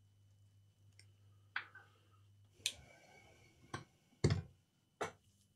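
A few sharp clicks and taps from tweezers and small tools handled on a circuit board, the loudest about four seconds in. One, near the middle, rings on briefly.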